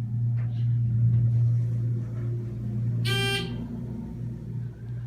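ThyssenKrupp elevator's alarm buzzer sounding a steady low buzz for several seconds, as the alarm button is held. About three seconds in, a brief higher beep sounds over it.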